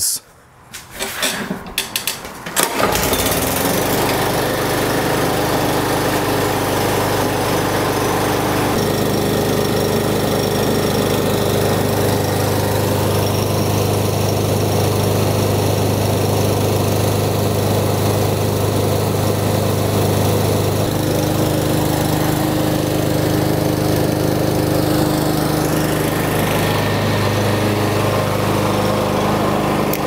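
Briggs & Stratton single-cylinder push-mower engine starting up about three seconds in, then running steadily with the blade turning. It runs without the earlier noise and kickback, a fault traced to a blade not locked in its adapter and now cured with a new adapter and blade.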